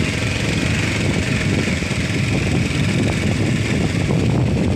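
Motorcycle running steadily while being ridden, with wind rushing over the microphone.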